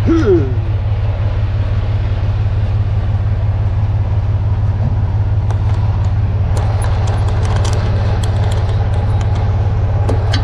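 Semi-truck diesel engine idling with a steady low rumble. From about six and a half seconds in, a run of sharp metallic clicks and clatter sounds over it.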